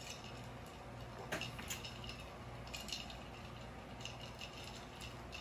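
Faint scattered clicks: wet mouth smacks after a swallow of water, with light clinks of a glass jar.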